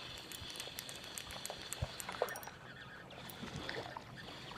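Small splashes and drips of water with scattered light clicks and a faint steady hum, as a small hooked white bass is brought in to the boat.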